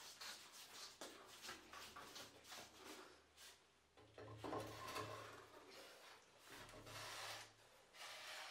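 Faint scraping and rubbing of a heavy beech worktop board against OSB as it is lowered onto a cabinet top and slid into place, in irregular strokes that are loudest about halfway through and again near the end.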